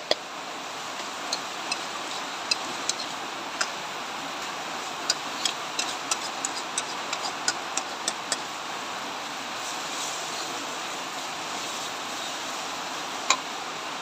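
Metal spatula clinking and scraping against a wok while stir-frying shredded cabbage and carrot: a run of sharp clicks over the first eight seconds or so and one more near the end, over a steady hiss.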